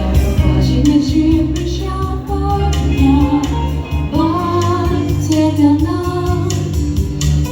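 A female voice singing a melody over a backing track with bass and a steady beat.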